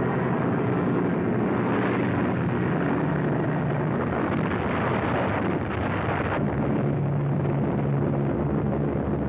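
Battle sound effects: a steady drone of aircraft engines under a dense rumble of anti-aircraft gunfire and explosions. The noisy part cuts off suddenly about six seconds in, leaving the engine drone.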